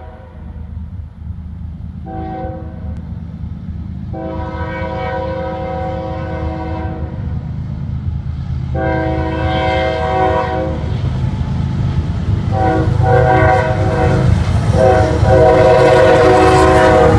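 Multi-chime air horn on the lead diesel locomotive of an approaching CSX freight train sounding a run of horn salutes: a short blast, two long blasts, then a quick string of blasts near the end. Beneath the horn, the low rumble of the locomotives' diesel engines grows steadily louder as the train nears.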